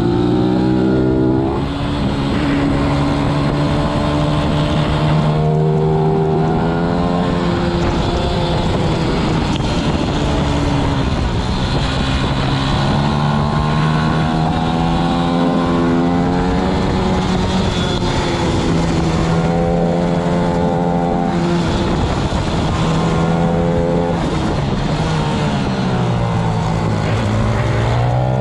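Racing pit bike's single-cylinder four-stroke engine at full race pace, heard onboard. Its pitch climbs in long sweeps as it pulls up through the gears, then drops back as it slows for corners, over and over.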